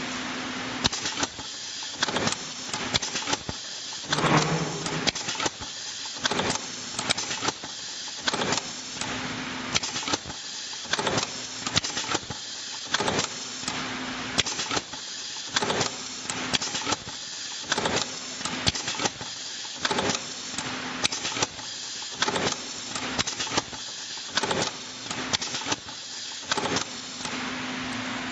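Automatic pre-insulated tubular terminal crimping machine cycling over and over as wires are fed in one at a time. Each strip-and-crimp cycle gives a short burst of sharp mechanical clacks, about once a second, over a steady hum.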